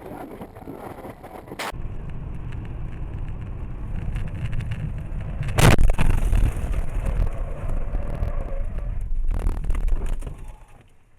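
Low rumble of a vehicle on the move, heard through a dashcam, with one loud bang about halfway through.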